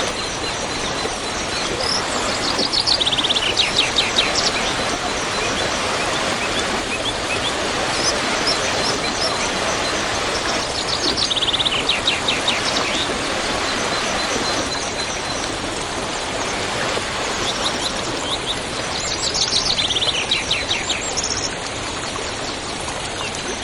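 Waterfall rushing steadily, with a songbird singing a quick descending trill three times, about every eight seconds.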